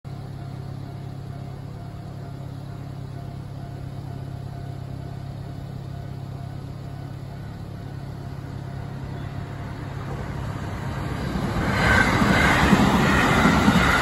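Japanese level crossing alarm ringing steadily while the barrier is down; from about 11 seconds in, a JR West 223-series electric train comes up and passes close by, its wheels on the rails getting loud from about 12 seconds.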